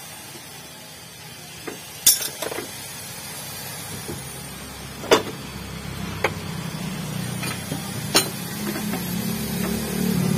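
Metal hand tools clinking and knocking against engine parts several times, a sharp clink every second or few seconds, during engine disassembly. A low engine hum builds up underneath and grows louder near the end.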